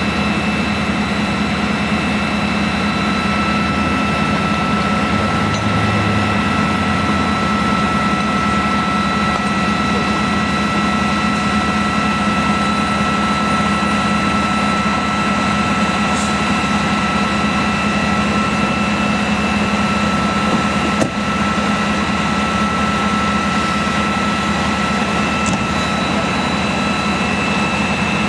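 An engine idling steadily: a low hum with a constant high-pitched whine over it.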